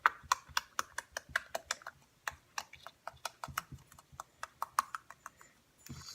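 Soft slime being squished and kneaded by hand, making a fast, uneven run of sharp clicks and pops, several a second, which stops about five and a half seconds in.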